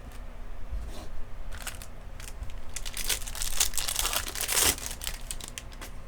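Plastic foil wrapper of a Topps baseball card pack crinkling and tearing as it is opened by hand: a short burst of crackles, then a denser, louder stretch in the middle.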